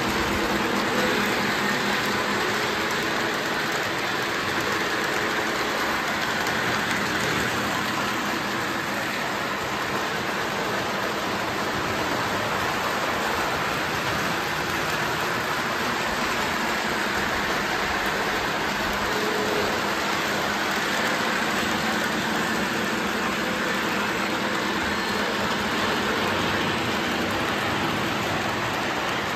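Lionel model trains running on three-rail track: a steady whirring rumble of wheels and motors, with a faint hum under it.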